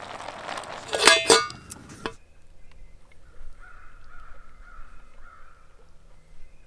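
Small propane canister stove burner hissing, broken by two loud harsh sounds about a second in. The hiss stops abruptly about two seconds in, leaving a much quieter background.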